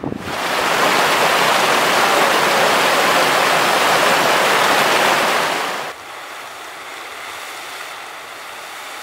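Loud, steady rush of flowing water that cuts off sharply about six seconds in, giving way to a quieter steady rush.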